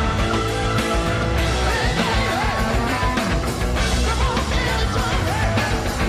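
Live hard rock band playing loudly, with electric guitar, bass and drums, and bending melodic lines from the guitar or voice.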